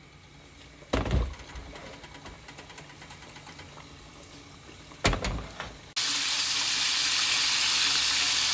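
Two thumps, about a second in and again about five seconds in. Then, about six seconds in, the loud steady sizzle of chicken deep-frying in hot oil cuts in suddenly.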